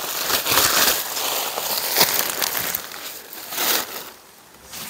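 Plastic bubble wrap rustling and crinkling with sharp crackles as it is pulled out of a cardboard box and handled. It falls quiet about four seconds in.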